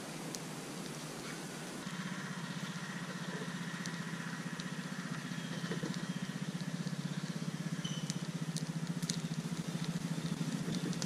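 A campfire crackling with scattered small pops. About two seconds in, a steady low, fast-pulsing drone joins it and carries on underneath.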